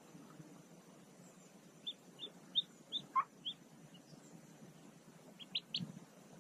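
Mallard ducklings peeping from under the brooding hen at hatching: faint short high peeps, five in quick succession with one longer falling note among them, then a few more near the end.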